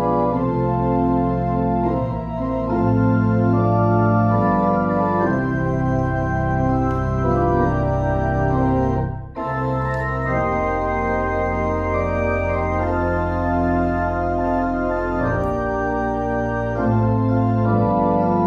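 Pipe organ playing slow, sustained chords over a deep pedal bass, with a short break a little past halfway before the music goes on.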